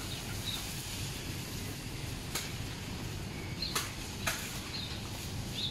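Reed stalks being chopped with a blade: three sharp cracks, the last two close together, over a steady outdoor background hiss.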